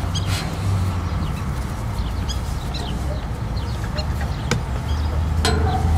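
Chickens clucking, with a louder call near the end, over a steady low rumble.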